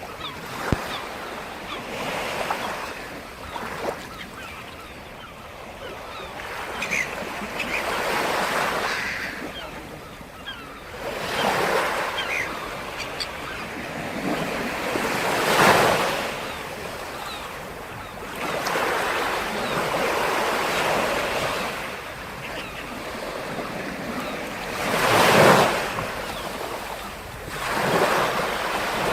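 Black Sea surf: waves breaking and washing onto the shore one after another, each swelling and falling away over a few seconds, with the biggest breaks about halfway through and near the end.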